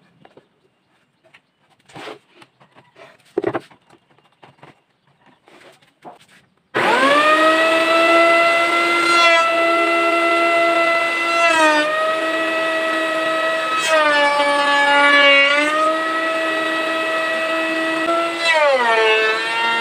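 A few faint knocks and clicks, then about seven seconds in the electric motor of a homemade table-mounted woodworking machine switches on and spins up quickly to a loud, steady whine. Its pitch dips briefly several times and settles lower near the end.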